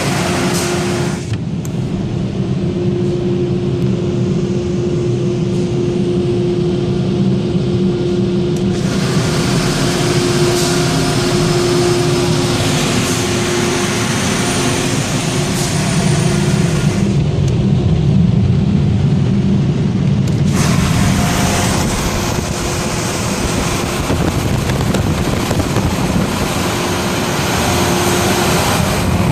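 Automatic car wash air dryer blowers running, a loud steady roar of air with a droning hum, heard from inside the car; the higher hiss of the air blast falls away twice as the blowers move along the car.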